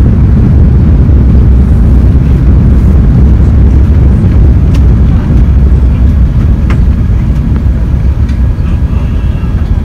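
Airbus A380 cabin noise during the landing rollout: a deep, steady rumble from the wheels on the runway and the engines, with a few light rattles. It eases off in the last few seconds as the airliner slows.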